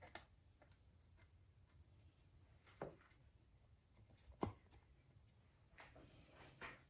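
Near silence broken by a few faint clicks and knocks of hard plastic parts being handled, as the check valve of a diaphragm air pump is pressed onto its hose; two are clearer, about three and four and a half seconds in.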